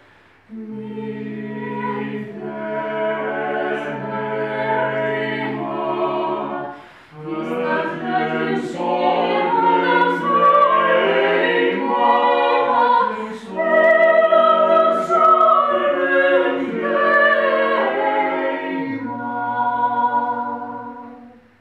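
Mixed vocal quartet of two women and two men singing a cappella in close harmony: sustained chords in phrases, with two short breaks for breath. The song closes on a final held chord that stops just before the end.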